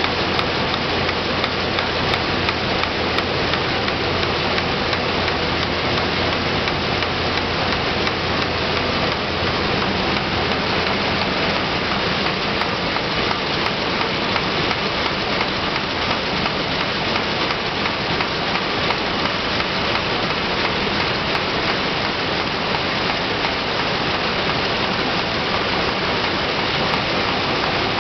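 Film packaging envelope pasting machine running continuously: a steady, dense mechanical noise with a faint low hum underneath.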